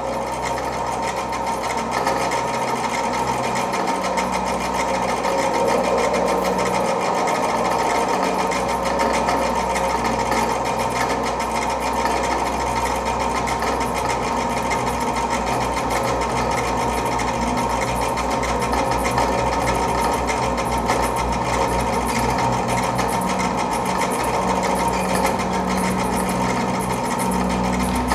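Electronic soundtrack of a fast, steady machine-like rattle, like a sewing machine running, over a held high tone and a low hum.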